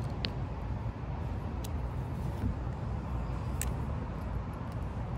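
Steady low background rumble with a few faint, sharp clicks of small screws and a driver being handled while a micro RC crawler beadlock wheel is screwed together.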